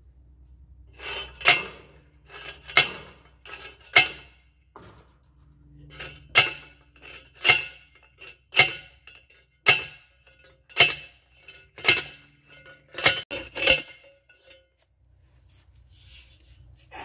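Steel fence post being driven into the ground with a metal post driver: sharp ringing metal-on-metal clanks about once a second, a dozen or so, with three quicker strikes near the end before they stop.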